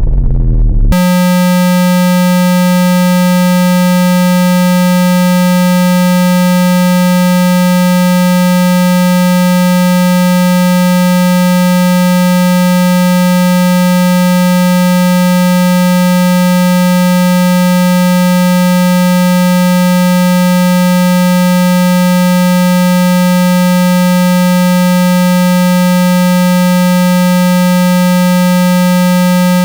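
Steady, buzzy 195 Hz synthesized tone, held at one pitch and level without a break: a water-eject tone meant to vibrate water out of a phone speaker. It starts about a second in, as a whooshing intro effect ends.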